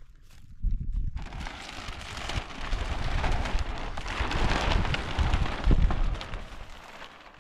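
Clear plastic sheeting rustling and crinkling loudly as it is handled close by, with a low rumble beneath. The noise starts under a second in and fades near the end.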